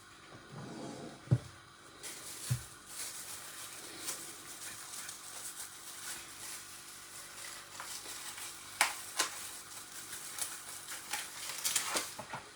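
Steady hiss of a pot of lime, pepper and clove remedy simmering on the stove, with a few light clicks and knocks of utensils or containers being handled.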